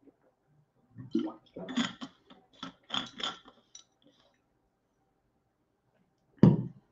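Drinking bottle being handled: a cluster of light knocks and clinks, then one short, louder sound near the end.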